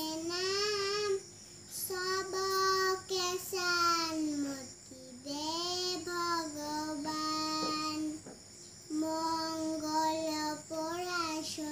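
Young girl singing a Hindu prayer song unaccompanied, in long held phrases with short pauses for breath between them.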